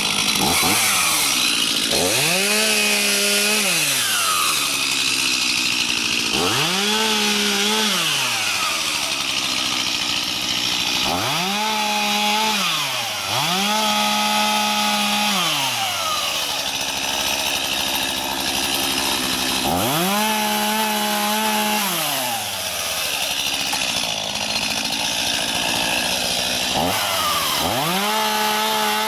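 Stihl MS251C two-stroke chainsaw idling and revving to full throttle in about six bursts of a couple of seconds each, the pitch climbing, holding steady, then dropping back to idle. These are short cuts taking the limbs off a felled tree.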